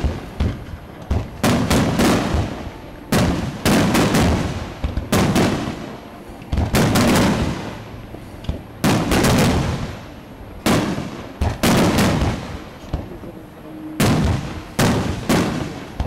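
Fireworks display: aerial shells bursting in quick succession, sharp bangs every second or so, often two or three close together, each trailing off.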